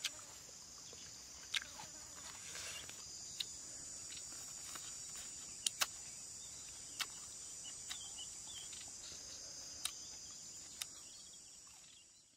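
A steady, high-pitched chorus of insects, with a dozen or so short sharp clicks scattered through it, fading out at the very end.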